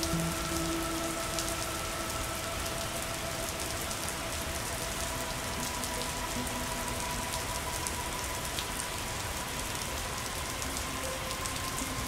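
Rain falling steadily: an even hiss dotted with the small ticks of individual drops.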